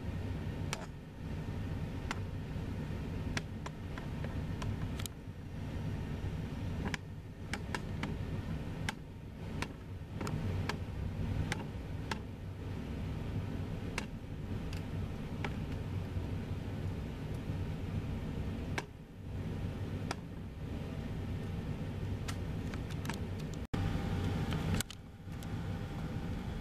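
Steady low rumble of jet aircraft at the airport, with frequent short, sharp clicks throughout.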